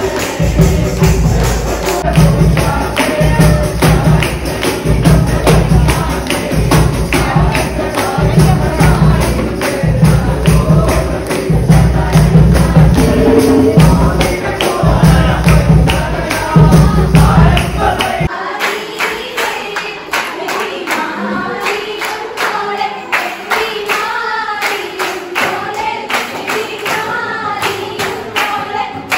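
A group singing a Mappila wedding song in chorus, with rhythmic clapping and hand percussion over a heavy bass beat. About eighteen seconds in the bass beat cuts out suddenly, leaving the voices and the clapping.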